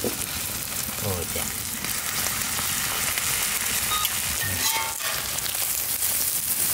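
Beaten eggs sizzling in hot oil on a large flat griddle (tawa), a steady frying hiss. Steel spatulas scrape the griddle as the omelette is folded and turned.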